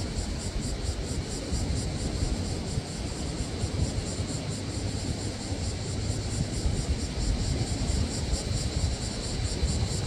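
Summer seashore ambience: a steady low rumble of the sea, with a high, evenly pulsing insect chorus above it.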